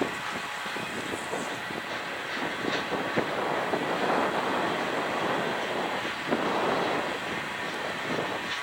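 Freight train rolling by: the wheels of the manifest's cars run steadily on the rails, with a few sharp clanks and knocks.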